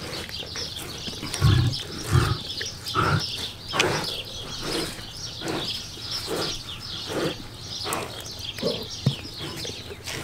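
Male lion eating a red grouper carcass, licking and chewing at the flesh in a steady run of short wet strokes about one a second. Two louder, deeper sounds come about a second and a half and two seconds in.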